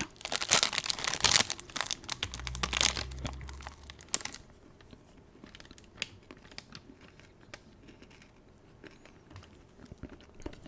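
Plastic protein-bar wrapper crinkling and crumpling for about the first four seconds, loudest about a second in. Then small scattered clicks and taps.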